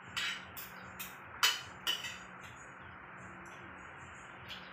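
Metal spoon and fork clinking against a plate of rice: a few sharp clinks in the first two seconds, the loudest about a second and a half in, then one faint clink near the end, over a low steady hum.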